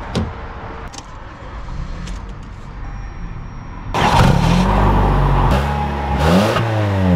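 Toyota Camry AWD's 2.5-litre four-cylinder engine comes in suddenly about four seconds in and is revved, its pitch rising and falling several times. Before that there is only a light background with a few clicks.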